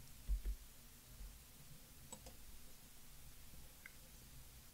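Quiet room tone, with two soft low thumps shortly after the start and a few faint clicks later on.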